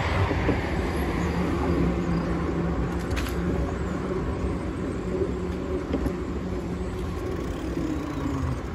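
Road traffic on the adjacent multi-lane road: a steady low rumble of car and truck engines and tyres.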